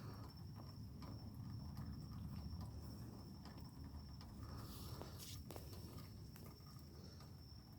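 Faint outdoor background: a steady high-pitched insect drone over a low rumble, with scattered light clicks and ticks.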